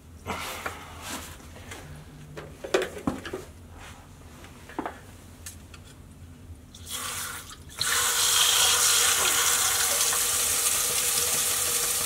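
Small knocks and clinks from handling the sump pump in its pit. About two-thirds of the way in, a loud, steady rush of running water starts suddenly in the sump pit and keeps going.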